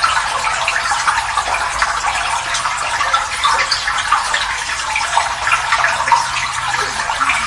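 Water pouring in a steady, continuous stream, splashing without a break.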